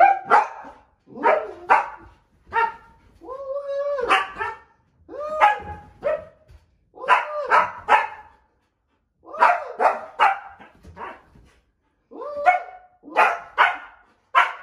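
Husky barking and yowling in short bursts about once a second, some calls sliding up and down in pitch and others sharp and abrupt, in worried excitement at a person hidden under the bed covers.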